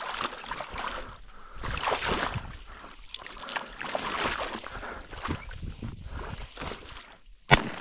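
Wind and rustling in the blind's cattails, then a single shotgun shot near the end.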